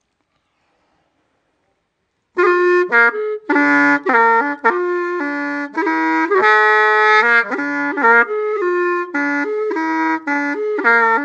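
About two and a half seconds of silence, then background music: a solo wind instrument playing a melody of short, quickly changing notes.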